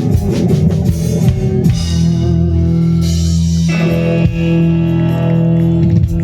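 Live country band with electric guitars, bass and drum kit: a busy last bar, then from about two seconds in a held closing chord ringing out, with one drum hit partway through.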